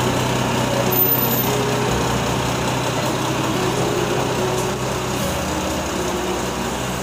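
Garbage truck's diesel engine running steadily close by, a low, even mechanical drone.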